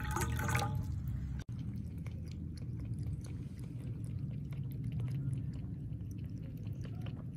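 Water poured into a stainless steel bowl for about a second and a half, then, after an abrupt cut, a cat lapping water from the bowl: a quick run of soft, wet licking clicks over a low steady hum.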